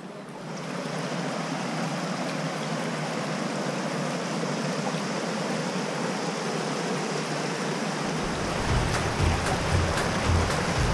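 Steady rushing water of river rapids pouring over a rock ledge. A music track with a low pulsing beat comes in about eight seconds in.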